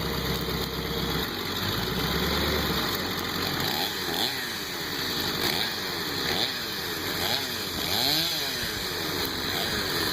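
Chainsaw running, its pitch rising and falling about once a second from a few seconds in, as the throttle is worked while cutting down a tree.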